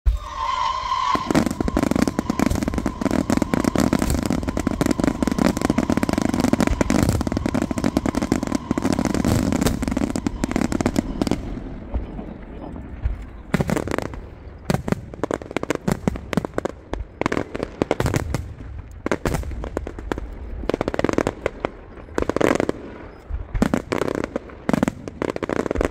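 Fireworks going off: a dense run of rapid crackling bangs for about the first twelve seconds, then separate booms and pops at irregular intervals.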